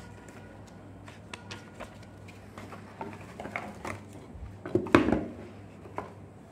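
Paper and cardboard packaging of a TV box being handled: light rustling, scraping and small clicks, busier in the second half, with one louder knock of cardboard about five seconds in.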